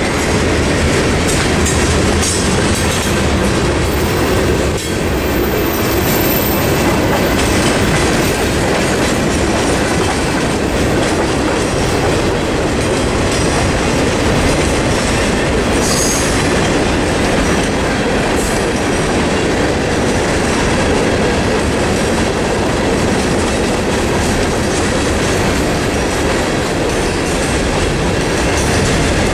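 A freight train's cars, boxcars and then coal hoppers, rolling past close by: a steady clatter of steel wheels on the rails that holds level throughout.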